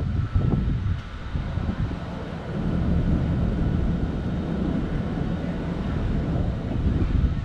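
Wind buffeting the microphone: a low, uneven rumble that picks up and holds steadier a few seconds in, over faint outdoor background noise.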